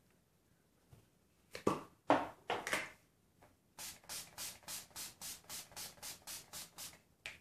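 A pump spray bottle of makeup setting spray misting the face in about a dozen quick, even hissing spritzes, three or four a second. Before that come a few louder rustling handling noises.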